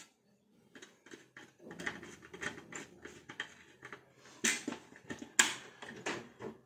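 Small, irregular clicks, taps and rattles of wires and metal being handled at the screw terminals of a metal-cased switching power supply while it is wired up, with two sharper clicks a little past halfway.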